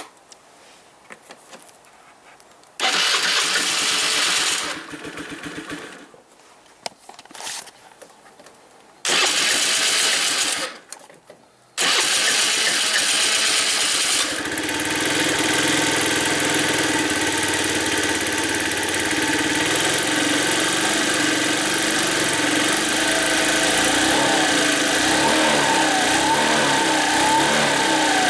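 Honda Dio 50 AF62 scooter's 49 cc four-stroke single being cranked twice for about two seconds each without catching. On the third try, about 12 s in, it catches and settles into a steady idle, now running after its carburettor has been stripped and cleaned.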